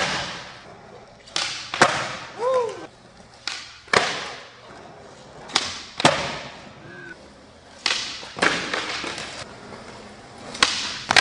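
Skateboard on a smooth concrete floor: wheels rolling, cut by several sharp cracks of the board popping and slapping down as flat-ground tricks are tried, one every second or two.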